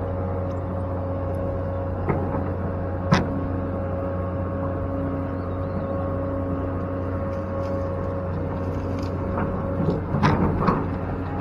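Excavator engine running steadily, with a sharp clank about three seconds in and several knocks and clanks near the end.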